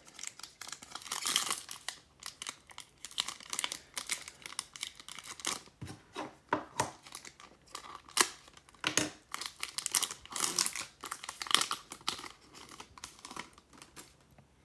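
Plastic trading-card pack wrapper crinkling and tearing as it is slit open with a small knife and handled, in dense, irregular crackles.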